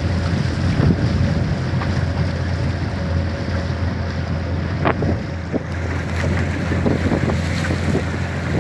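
Rushing water of a river waterfall, a steady noise with wind buffeting the microphone.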